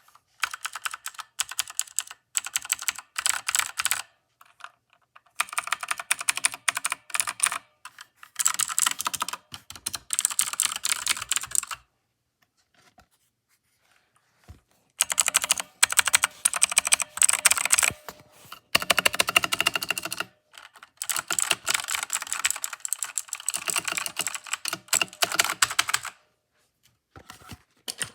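Typing on a mechanical keyboard with Outemu Blue clicky switches: rapid runs of sharp key clicks in several spells of a few seconds, broken by short pauses.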